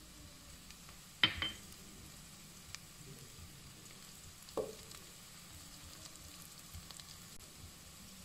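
Chopped onion frying faintly in oil in a granite-coated pot, with two sharp knocks, the louder about a second in with a short clink, the other at about four and a half seconds, as whole spices, a dried lime among them, are dropped into the pot.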